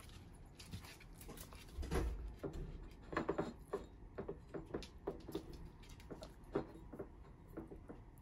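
Small dogs taking food from a hand: irregular short clicks and smacks of mouths working the food and claws on the floor, loudest about two and three seconds in.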